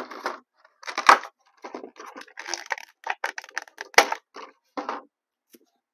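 Cardboard box and plastic insert of a vinyl Funko Pop figure being handled and opened: irregular crinkling, rustling and sharp crackles as the figure and its stand are taken out, loudest about a second in and about four seconds in.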